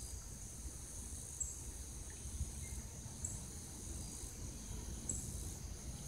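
Faint, steady high-pitched drone of insects, with a short high chirp about every two seconds, over a low rumble of light wind on the microphone.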